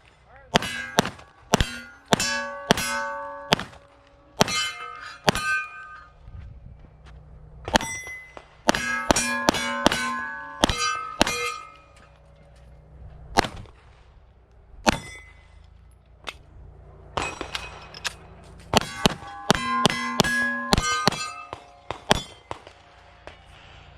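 Rapid pistol shots with steel targets clanging and ringing as they are hit. The shots come in several quick strings with short pauses between.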